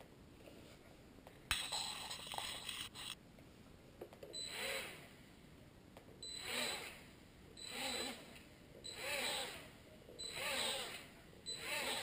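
Blade Nano QX micro quadcopter's small motors whining up in a sudden burst of about a second and a half. They then spool up and down in short throttle blips, six times, about every second and a half, each swelling and fading with a thin high whine.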